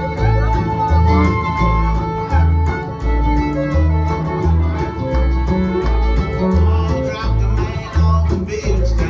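Live string band playing an instrumental break in a bluegrass/country style: fiddle and guitar over a steady bass, about two bass notes a second.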